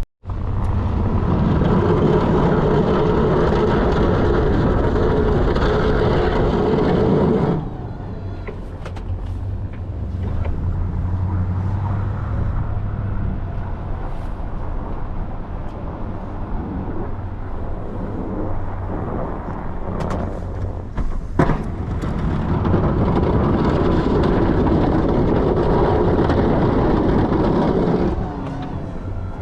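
Plow truck driving: steady engine and road noise, louder for the first seven seconds or so and again in the last few seconds, with a single sharp knock a little past the twenty-second mark.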